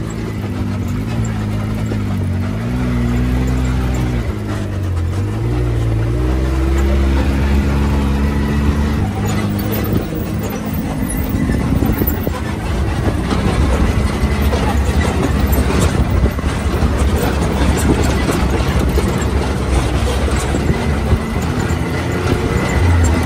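Can-Am side-by-side's engine running as it drives over a rocky dirt trail, its pitch rising and falling for the first several seconds. After that it settles into a steadier drone under rough rattling and knocking from the ground.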